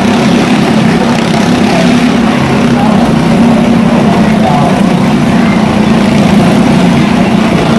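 Motorcycle engines running steadily at speed as the bikes circle the vertical wooden wall of a wall-of-death drum; a loud, constant drone with no let-up.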